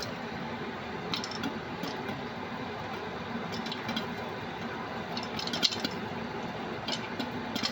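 Popcorn kernels popping in butter in a pot on the stove: scattered single sharp pops at irregular intervals, a few bunched together a little past halfway, over a steady hiss.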